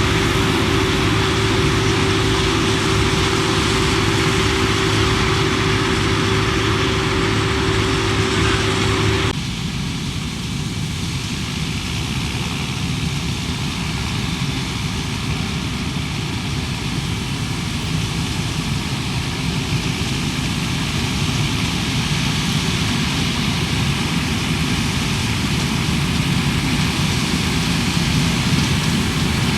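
Diesel engines of wheat-harvesting machinery running steadily under load, with a steady whine over the engine hum. About nine seconds in, the sound changes abruptly to a slightly quieter, lower engine run without the whine.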